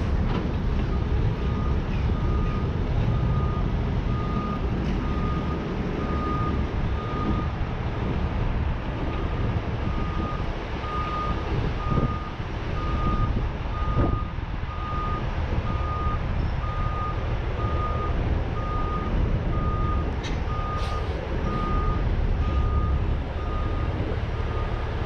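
Heavy tow truck's reversing alarm beeping steadily, about three beeps every two seconds, over the low rumble of its diesel engine as it backs up. A couple of sharp knocks come about halfway through.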